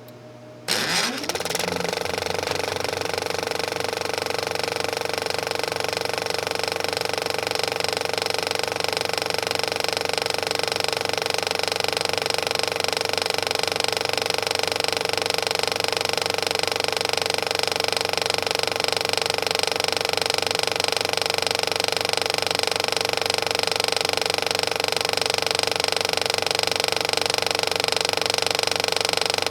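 Projector switching on: after a low hum, its motor starts suddenly about a second in, spins up with a rising whine, then runs steadily with a dense mechanical sound.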